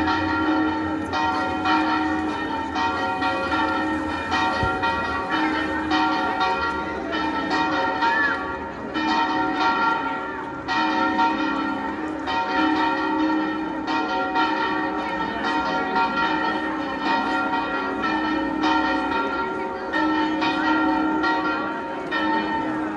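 Bells ringing continuously. New strokes start about every half second and the tones hang on and overlap.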